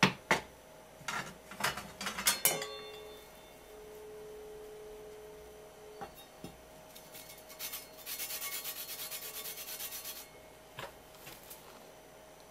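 Citrus rind being grated on a flat metal grater: a run of quick rasping strokes lasting about two seconds, near the end. Earlier, several knocks and clatters as the grater and fruit are handled, one knock leaving a faint ringing tone for a few seconds.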